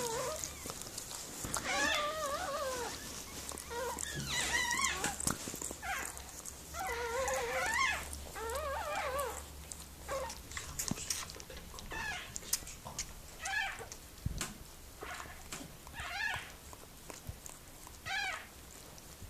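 Newborn miniature pinscher puppy crying in thin, wavering, mewing squeals, the first cries long and the later ones short and a second or two apart. Wet licking clicks underneath as the mother cleans the puppy.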